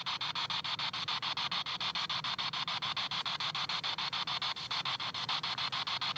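P-SB7 Spirit Box radio sweeping the FM band: a steady hiss of static chopped into rapid, even pulses, about ten a second, as the receiver jumps from station to station.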